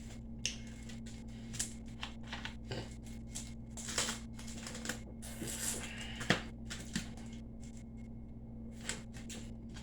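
Eating sounds at close range: irregular small clicks, smacks and rustles of chewing and handling food, over a steady low hum.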